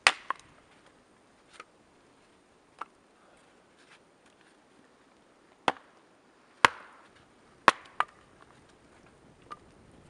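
Hatchet chopping into a short upright piece of firewood: about nine sharp, irregular knocks of the blade biting the wood, three of them much louder than the rest.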